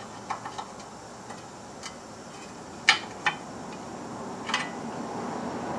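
Irregular sharp metallic clicks and clinks of a wrench being fitted to the rusty outer tie rod end nut. Several light clicks come in the first two seconds, a louder pair about three seconds in, and another about a second and a half later.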